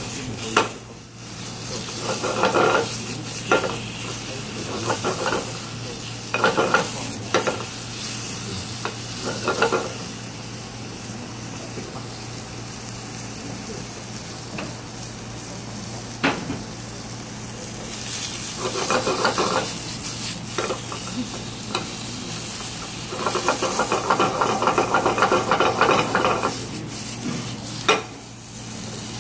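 Beef cubes sizzling in oil in a frying pan as they sear to brown for a stew. A metal spoon stirs and scrapes the pan in several short bursts, with a few sharp clicks against the pan.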